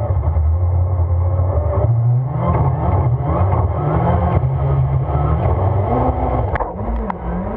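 Rallycross race car's engine running hard, heard from a camera on the bonnet, its pitch rising and falling again and again as the driver works the throttle and gears. Two sharp clicks come near the end as the engine note eases off.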